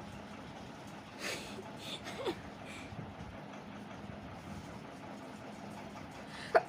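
A steady low hum with a couple of faint short breathy sounds, then a sharp, loud sneeze bursting out right at the end, provoked by tickling the nose with a thin stick.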